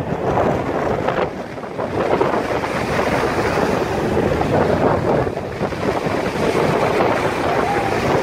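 Storm waves breaking on the shore, with strong wind blowing across the microphone. The rush eases briefly about a second in, then swells again.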